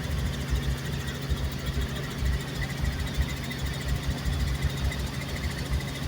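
Helicopter engine and rotor drone heard from inside the cabin, a steady low hum with uneven low thumping beneath it.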